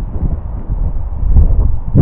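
Wind buffeting the microphone, a low rumble that grows louder toward the end.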